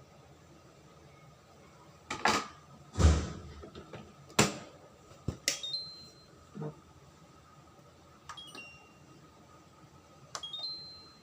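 Several sharp knocks and clunks, one heavier thud among them, then a few short high chime-like pings that step up in pitch near the end.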